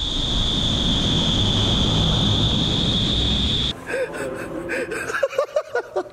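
Indoor skydiving wind tunnel's airflow and fans running loud and steady, with a high whine, cutting off suddenly about four seconds in. Then short gasps, panting and laughter from an exhausted flyer.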